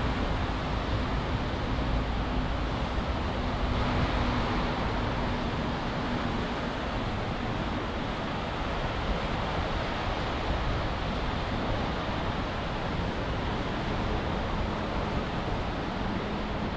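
Heavy summer rain falling steadily, a dense even hiss. A faint steady low hum sits under it for the first several seconds.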